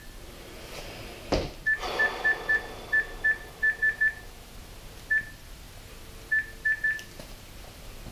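A phone's keypad beeping as a number is dialled: about a dozen short key-press beeps, all at the same pitch, in quick runs with pauses between. A single thump comes about a second in.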